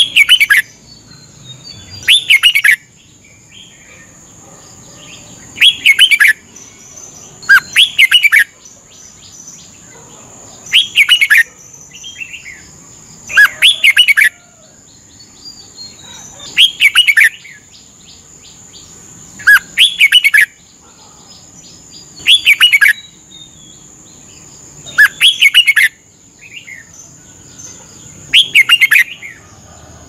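Red-whiskered bulbul singing short, loud song phrases, about eleven of them, one every two to three seconds.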